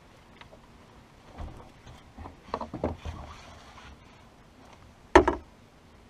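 Knocks and thumps on a bass boat's deck as a landing net holding a bass is brought aboard, with a small cluster of bumps partway through and one heavy thump about five seconds in.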